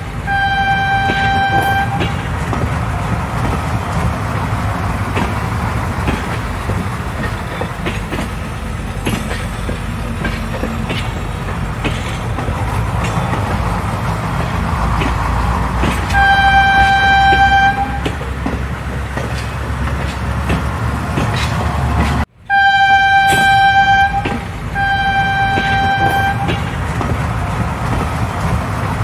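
Passing passenger train with a steady low rumble of the wagons on the rails, and a single-note train horn blowing four times: once at the start, once at about 16 seconds, and twice in quick succession after a brief sudden cut at about 22 seconds.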